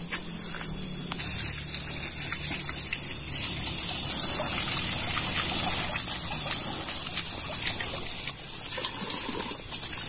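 Running water trickling and gushing steadily, with a steady high hiss over it.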